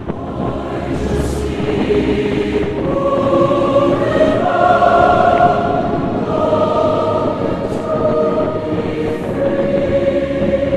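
A choir singing long held chords, swelling through the middle and easing near the end.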